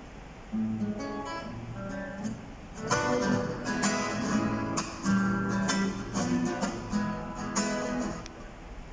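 Instrumental music on a plucked string instrument: separate notes at first, then fuller strummed chords from about three seconds in, stopping shortly before the end.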